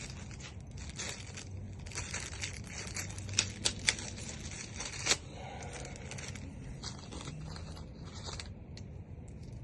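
Hands handling the new lock cylinder and its packaging: a steady rustling and crinkling, with several sharp clicks about three to five seconds in.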